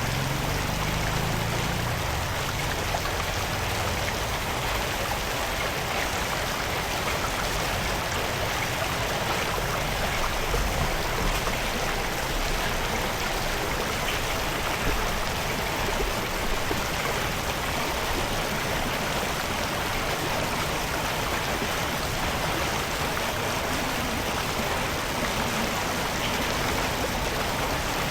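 Floodwater rushing steadily, a continuous even wash of flowing water.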